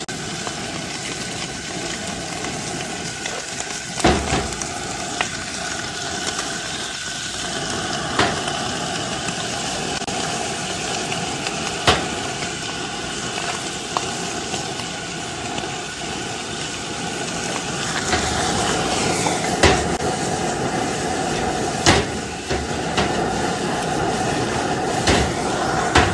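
Liver strips frying with sliced onion and peppers in a nonstick pan over a high gas flame, sizzling steadily, with a sharp knock every few seconds. The high heat sears the liver quickly so it does not stew in its own juices.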